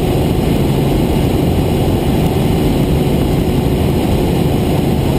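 Helicopter cabin noise in flight: the engine and rotor give a steady, loud drone with constant low hums running through it.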